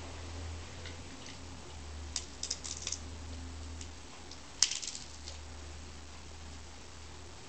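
Steady low hum and hiss, with a quick run of small clicks about two seconds in and one sharper click a little past the middle.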